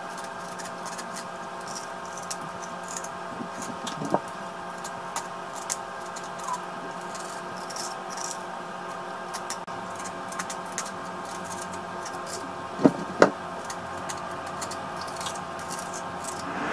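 A metal spoon scraping the seeds out of halved zucchini, with light scratchy strokes and two sharp clicks of the spoon knocking about 13 seconds in. A steady humming tone runs underneath throughout.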